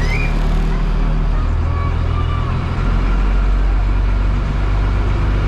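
School bus engine running under way, a steady low drone whose note shifts about a second and a half and again about three seconds in, with a few faint high squeaks over it.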